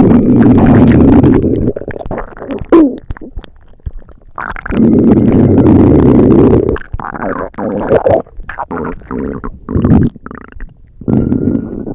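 Stomach rumbling sound effect: loud, rough growls, one long rumble at the start and another from about four and a half to seven seconds, with shorter bursts between and near the end.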